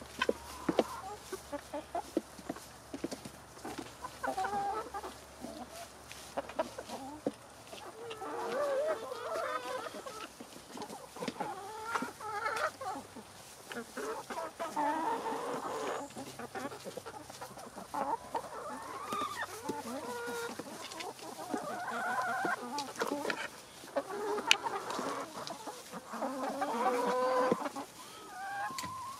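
Backyard chickens clucking steadily while they feed, with scattered sharp taps among the calls.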